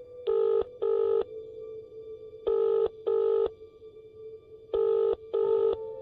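Telephone ringing tone of an outgoing call: three double rings about two seconds apart, over a faint steady drone.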